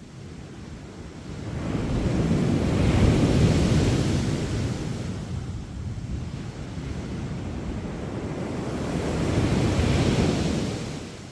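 Sea waves breaking on a beach: two surges of surf about seven seconds apart, each swelling and then washing back down, the first the louder.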